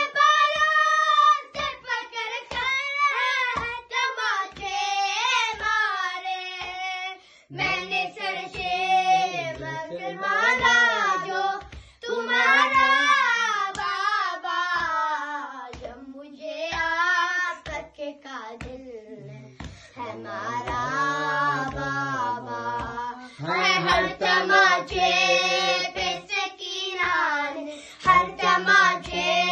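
Two young boys chanting an Urdu noha (Shia lament) together, beating their chests with flat hands in matam to keep time, a slap about once a second under the sung lines.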